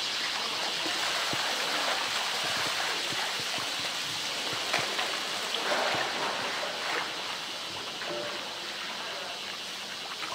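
Water sloshing and splashing as a polar bear wrestles a blue plastic tank in its pool, with water running out of the tank. A few sharper splashes come around the middle.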